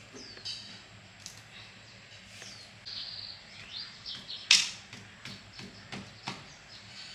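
Small birds chirping on and off, with a few sharp clicks or knocks, the loudest just after the middle and two lighter ones about a second later.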